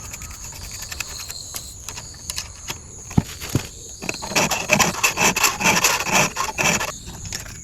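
A 4.0 mm round chainsaw file rasping across the cutter teeth of a saw chain during sharpening. A few light knocks come first, then from about halfway a quick run of filing strokes, about three a second.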